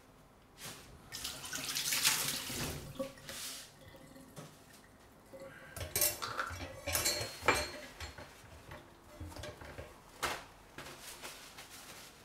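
Tap water running briefly at a kitchen sink, then dishes and utensils knocking and clinking a few times.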